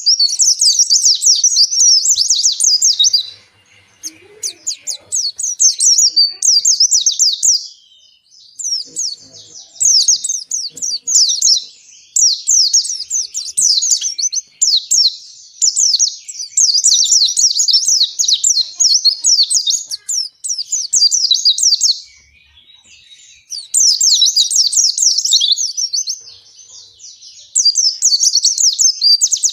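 A white-eye (pleci) singing long, fast, high twittering phrases of several seconds each, with short pauses between: the long continuous 'ngalas' song of a bird in full song.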